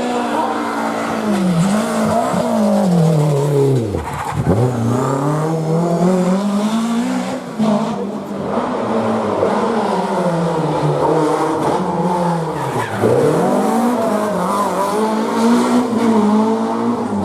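Historic rally car engine running hard, its revs rising and falling through gear changes. The revs drop steeply twice, about four seconds in and again about thirteen seconds in, then climb back up as it accelerates.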